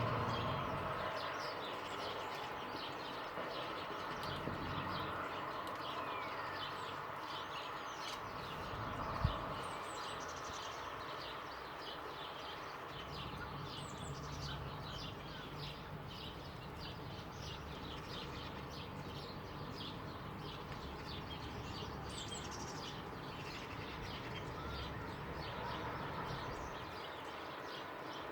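Many short, high bird chirps and calls scattered throughout, over a steady low background rumble. There is one sharp click about nine seconds in.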